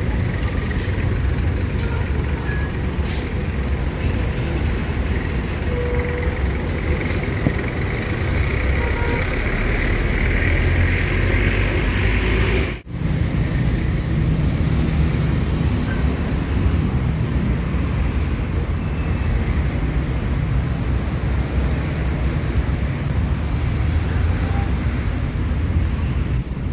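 Steady road traffic of city buses and cars passing close by, a continuous low rumble that drops out for an instant about halfway through.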